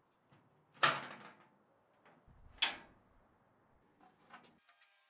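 Latch and door of an old sheet-steel cabinet being opened: two sharp metal clacks, about a second in and again near three seconds, each with a brief ring, then a few faint taps.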